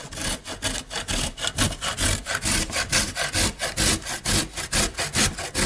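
A carrot being grated by hand on a four-sided box grater, rubbed up and down across its metal blades in quick, regular strokes.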